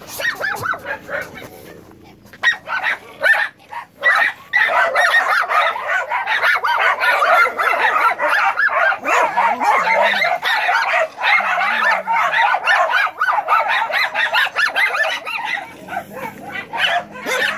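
A pack of dogs shut inside a camper trailer, barking all at once. The barking is sparse at first, becomes a dense, continuous chorus from about four seconds in, and thins out near the end.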